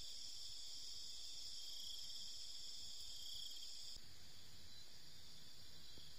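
Insects shrilling, a steady high-pitched buzz; about four seconds in it changes to a thinner, steady high tone.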